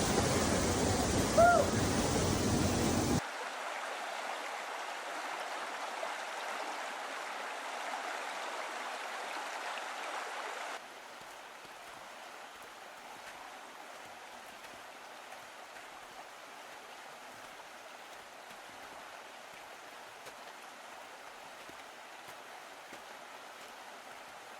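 Rushing water of Kanarra Creek, a steady even rush that drops in level suddenly after about 3 seconds and again after about 11 seconds. A short high chirp sounds about a second and a half in.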